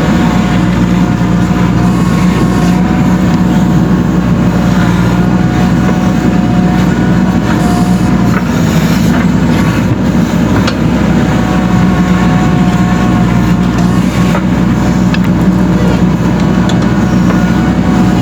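JCB 3DX Super backhoe loader's diesel engine running steadily, with a few faint clicks.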